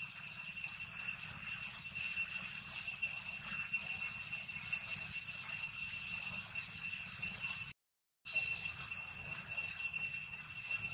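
A steady, shrill, high-pitched insect drone, pulsing slightly, that drops out for about half a second about two-thirds of the way through.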